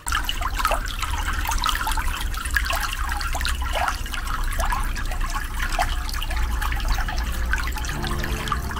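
Water streaming into a small garden pool, splashing and gurgling with many quick bubbly plops.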